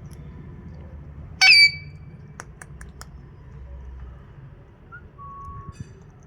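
Pet parrot giving one short, loud, shrill call about one and a half seconds in, followed by a few sharp clicks and, near the end, a faint brief whistle.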